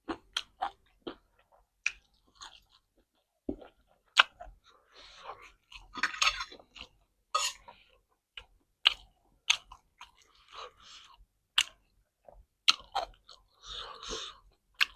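A person chewing crunchy raw vegetables close to the microphone: sharp, irregular crunches mixed with softer wet chewing.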